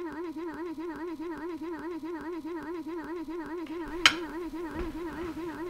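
A steady electronic warbling tone, its pitch wavering evenly about four times a second, added as a comic sound effect. A single sharp clink cuts through it about four seconds in.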